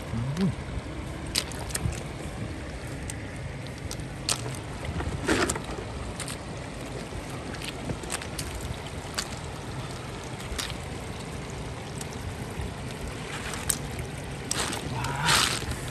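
Shallow floodwater sloshing and splashing, with scattered short sharp splashes or knocks and a louder splash about five seconds in and again near the end.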